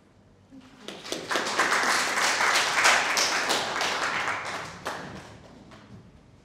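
Audience applauding. The clapping starts about a second in and dies away after about five seconds.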